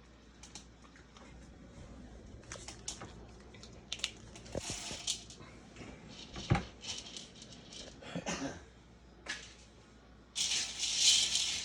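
Scattered small clicks, taps and rustles of food and packaging being handled in a kitchen, with one sharper knock midway. A loud rushing noise starts near the end.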